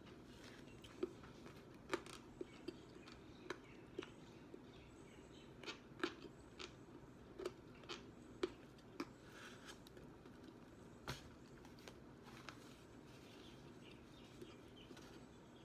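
Close-up chewing of crispy breaded hot and spicy chicken wings: faint, irregular soft crunches and mouth clicks, a dozen or more scattered through the stretch.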